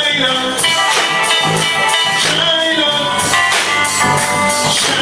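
Upbeat music with drums keeping a steady beat under sustained instrumental notes.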